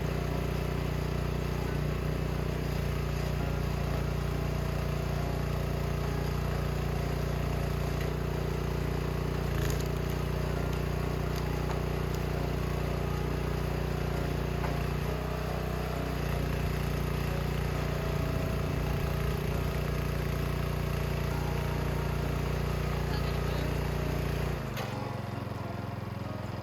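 An engine running steadily at constant speed, a low drone that drops away about two seconds before the end.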